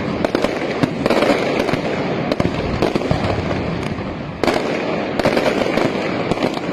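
Fireworks going off in rapid succession: a dense, continuous crackle of many sharp bangs, swelling afresh about a second in and again about four and a half seconds in.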